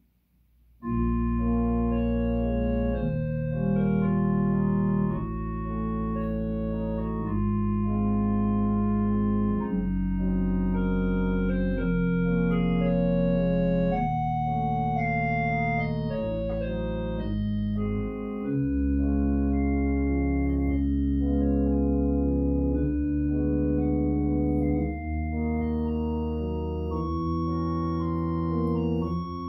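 Organ playing a slow, solemn elegy in held chords over a deep sustained bass, starting about a second in.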